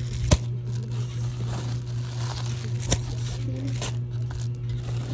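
Plastic packaging crinkling and rustling as items are handled, with a few sharp clicks and a steady low hum underneath.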